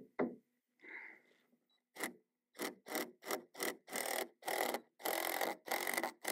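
Cordless impact driver run in short trigger bursts, about two to three a second and longer in the middle, setting a screw into the wooden window frame beside the glass.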